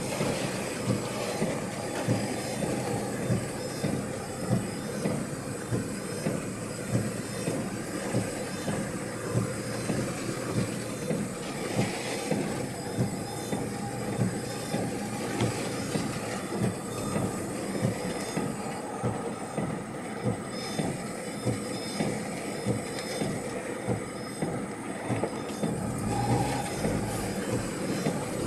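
Strong typhoon wind blowing through apple trees, with leaves and branches rustling and thrashing. Short thumps come every second or so over the steady rush.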